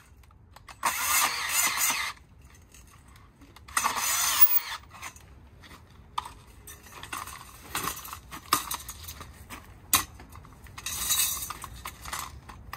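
18 V Ridgid cordless portable bandsaw with a brushed motor, run in two short bursts of about a second each as it cuts through thin metal tubing. Between and after the bursts come clinks and knocks of metal being handled.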